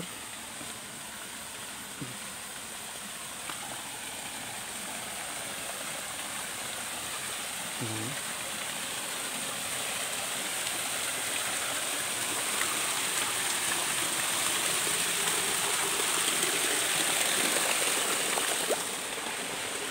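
Water rushing along a shallow concrete stream channel and spilling over a small weir, a steady splashing hiss that grows gradually louder.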